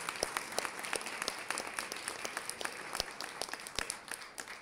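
An audience applauding: many hands clapping together in a steady patter.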